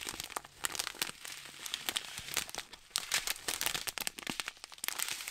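Strips of thin clear plastic zip bags holding round diamond-painting drills crinkling and crackling as they are handled, in a quick irregular run of small crackles.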